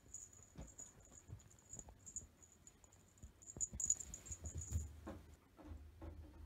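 A kitten's paws pattering and scuffling on a soft blanket in quick, irregular soft thumps and clicks, busiest about four seconds in. The small bell on its collar tinkles faintly on and off as it moves.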